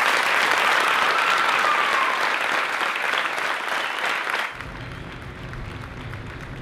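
Crowd applauding. The applause cuts off abruptly about four and a half seconds in, leaving a quieter low steady rumble.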